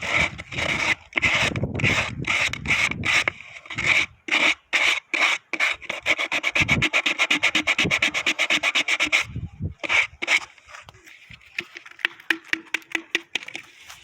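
Sandpaper rubbed back and forth by hand along the wooden stave of a berimbau being finished. The strokes come about two a second at first, speed up to a quick run of short strokes about halfway through, then slow and grow fainter near the end.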